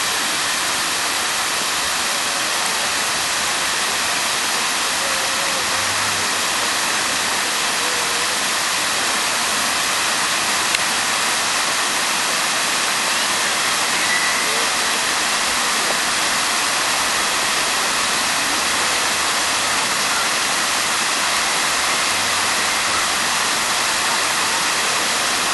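Fountain jets spraying and splashing back into their pool: a steady, even rush of falling water.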